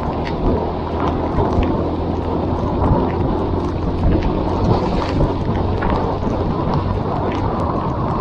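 Honda CB190R single-cylinder motorcycle engine running steadily while riding, under a dense wash of heavy rain and wind noise, with scattered sharp ticks throughout.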